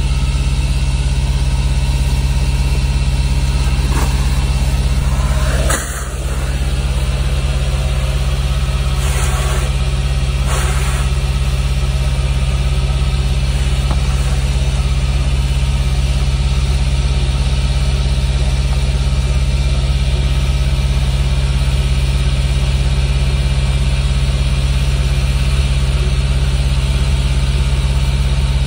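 An engine idling steadily, a constant low drone. A few brief noises sound over it between about four and eleven seconds in.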